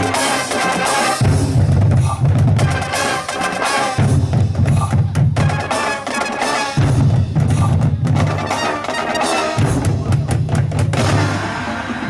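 Marching band playing a percussion-heavy passage: rapid drum strikes over a low bass that comes and goes in blocks of about two to three seconds.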